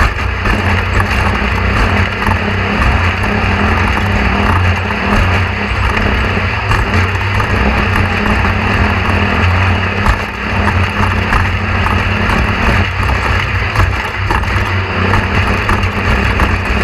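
Steady, loud low drone of a running vehicle, without breaks.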